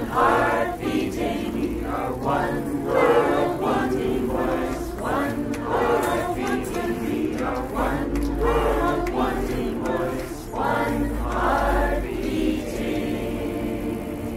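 A crowd singing together as a choir, repeating a short chant-like refrain in overlapping parts. The singing thins out and fades about two seconds before the end.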